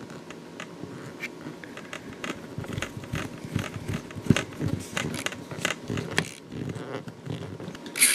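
A small screwdriver turning the screw that fixes a plastic servo arm onto a micro servo: irregular light clicks and scrapes, busier and louder in the middle.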